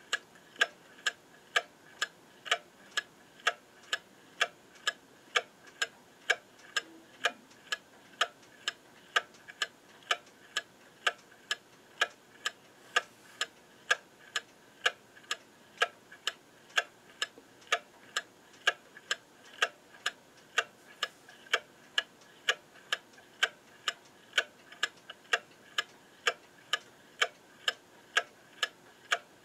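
Brass spring-driven movement of a Welch, Spring & Co. Patti clock running, its escapement ticking evenly at about two and a half ticks a second.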